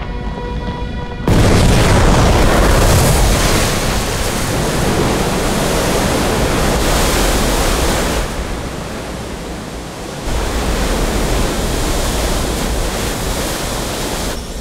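Loud rushing water of a newly released river gushing out, starting abruptly about a second in over background music; it eases around eight seconds in and surges again at about ten.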